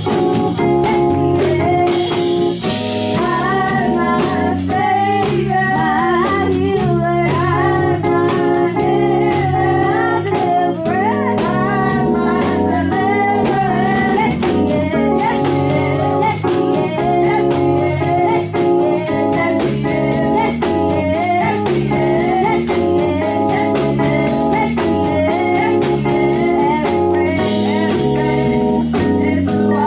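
Gospel song: girls' voices singing through microphones over an instrumental backing with a steady beat.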